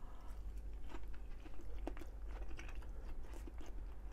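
A person chewing a mouthful of fried oyster tempura close to the microphone, with irregular small crunches and wet clicks, over a low steady hum.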